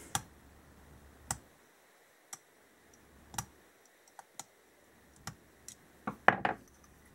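Scattered small metallic clicks and taps of a screwdriver tip working inside the aluminium body of a Mikuni BS34 carburetor to free a small part lodged in a passage, with a cluster of louder knocks about six seconds in as the carburetor body is handled.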